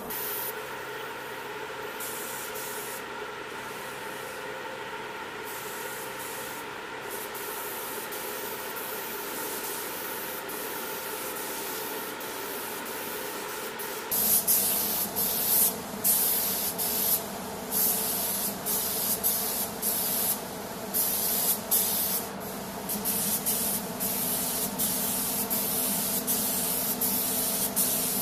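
Air-fed gravity-cup paint spray gun hissing, over a steady hum. From about halfway it is louder and comes in short passes with brief gaps between trigger pulls.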